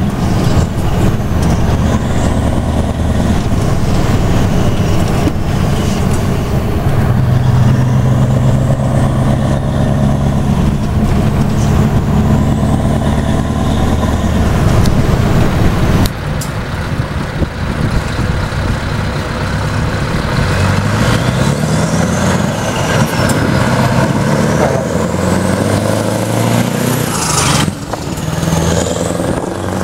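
Scania V8 truck engine with a side-pipe exhaust, heard from inside the cab while driving. It runs with a steady deep drone, then climbs in pitch as the truck accelerates in the second half.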